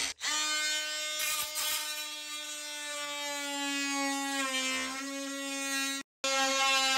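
DeWalt cordless oscillating multi-tool buzzing steadily as its blade cuts into the foot of a wooden door frame, undercutting it at flooring height over a laminate offcut. The pitch sags slightly as the blade loads up, and the sound breaks off for a moment about six seconds in before resuming.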